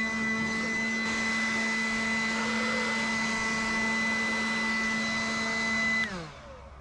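An electric motor whines at a steady pitch, then is switched off about six seconds in and winds down with falling pitch.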